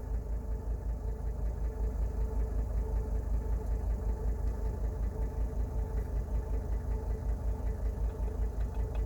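Mercedes-Benz W123 diesel engine idling steadily, with an even pulsing beat.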